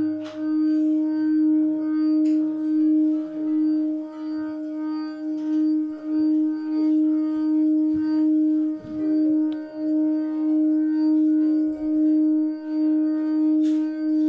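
Quartz crystal singing bowl tuned to the sacral chakra, played so it sings: one steady low tone with fainter higher overtones, its volume pulsing evenly about one and a half times a second.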